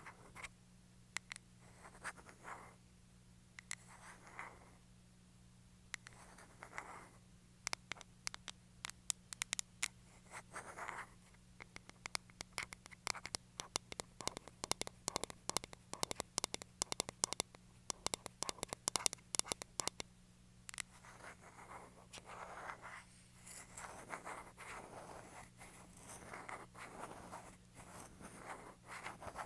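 Close-miked ASMR scratching and tapping: scratchy brushing strokes mixed with rapid sharp clicks, which come thickest through the middle, over a steady low hum.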